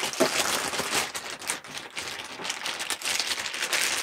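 Thin pink plastic bag crinkling and rustling as a heavy dome camera is pulled out of it, a busy crackle of small clicks.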